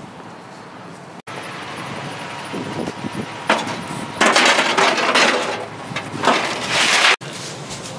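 Scrap being loaded into a pickup truck bed: a cardboard box shoved across the bed among metal pieces, scraping and clattering in bursts through the second half. The sound cuts off abruptly twice.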